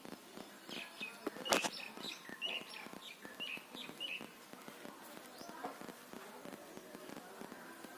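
A run of short, high bird chirps over about three and a half seconds, with one sharp click about a second and a half in.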